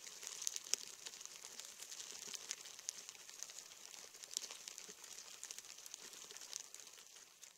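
Dense, faint crackling of many fine clicks and ticks over a high hiss, fading out near the end.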